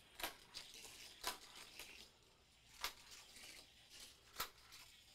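Hot Wheels track kicker loops snapping as a die-cast car runs through them: a string of faint, sharp plastic clicks, the four strongest spaced about one to one and a half seconds apart, over a light rolling hiss.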